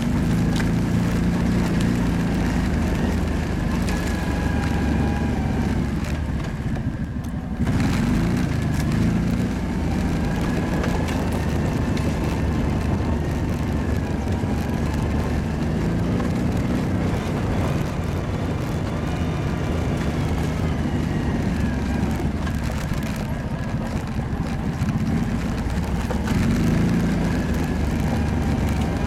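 Kawasaki ATV engine running while the quad is ridden, its pitch rising and falling with the throttle. It eases off briefly about seven seconds in, then picks up again.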